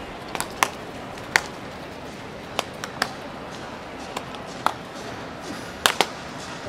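Baseballs smacking into leather gloves as players play catch: about nine sharp pops at irregular intervals, over steady ballpark background noise.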